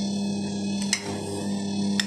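Bosch stand mixer running steadily, its motor giving an unchanging hum and whine as the dough hook kneads the dough. Two short sharp clicks come about a second in and at the end.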